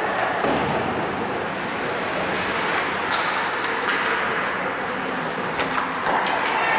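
Steady echoing noise of an ice hockey game in a rink: skates scraping and gliding on the ice, with a few sharp clicks of sticks and puck.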